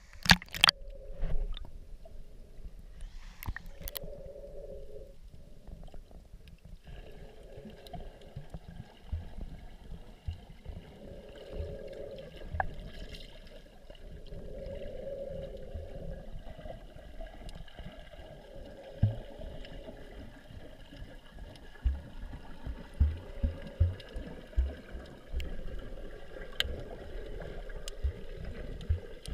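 Underwater sound through an action camera's waterproof housing: a splash as the camera dips under near the start, then a muffled, steady water hiss with a low hum and scattered soft knocks against the housing.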